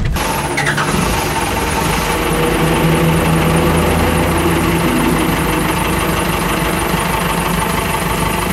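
Cummins 4BT four-cylinder turbo diesel in a Ford F-150 starting after sitting a few days, then running at idle. It comes in suddenly and settles to a steadier idle after about five seconds.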